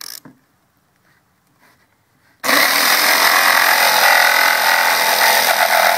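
Electric jigsaw switched on about two and a half seconds in and cutting into 3/8-inch plywood. It runs loud and steady for about three and a half seconds, then cuts off.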